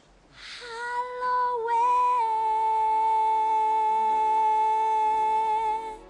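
A high voice sustaining one long note for about five seconds. It swells in from a breathy start, steps slightly in pitch about two seconds in, holds steady, then cuts off just before the end.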